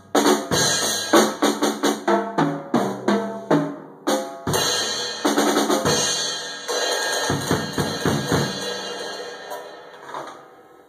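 Tama drum kit played in a freestyle run: quick drum strokes with bass drum and snare for about four seconds, a brief break, a few more hits, then a cymbal left ringing and dying away over the last few seconds.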